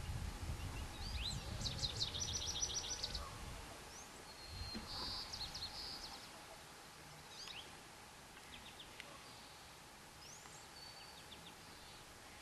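Small birds chirping and trilling in short high phrases, several times, over a low rumble that fades out about halfway through.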